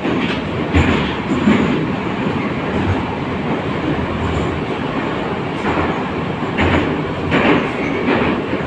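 81-722.1 metro car running at speed, heard from inside the passenger cabin: a steady rumble and rush, with runs of wheel clatter about a second apart near the start and again in the last few seconds.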